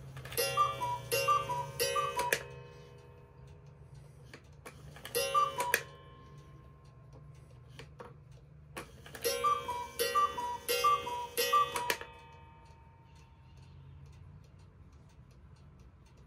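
One-day Black Forest cuckoo clock cuckooing as its hands are turned forward: two-note cuckoo calls, a high note then a lower one, about three times, then once for the half hour, then about four times. Each set leaves a brief ringing, and the clock's pendulum ticks steadily underneath.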